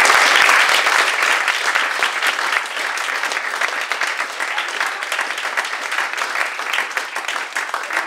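Audience applauding, loudest at first and then easing off to a lower, steady clapping.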